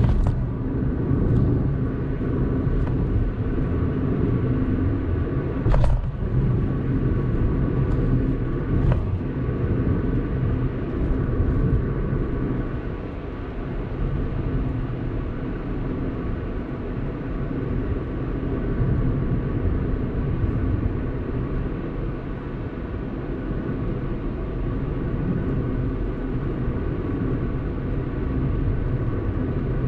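A car driving along an open road: a steady low rumble of engine and tyres, with two short knocks about six and nine seconds in.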